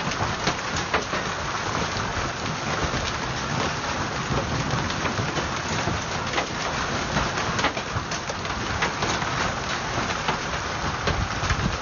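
Rain and hail coming down heavily: a steady hiss broken by many scattered sharp clicks of hailstones striking the ground.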